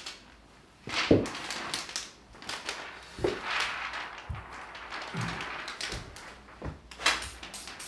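Clear plastic protective film being peeled off an OLED TV screen, crinkling and crackling in bursts, with a few sharper cracks, the loudest about a second in.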